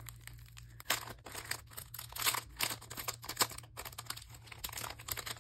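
Clear plastic sleeve crinkling and crackling as hands peel back its sticker seal and pull it open, in quick irregular crackles.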